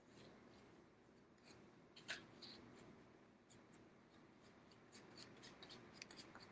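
Faint scratching and dabbing of a paintbrush on a paper plate: scattered soft strokes, the clearest about two seconds in, over near silence.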